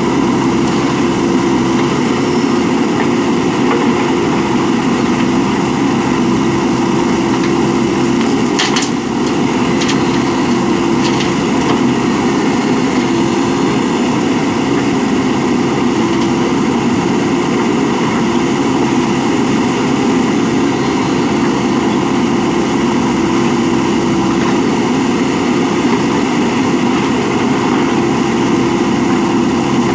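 JCB 3DX backhoe loader's diesel engine running steadily, with a few light clicks about nine to eleven seconds in.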